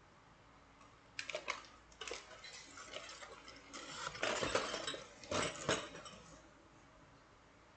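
Metal wire puzzles clinking and jangling against one another as they are handled, a run of light metallic clatters starting about a second in and stopping about six seconds in, busiest near the end.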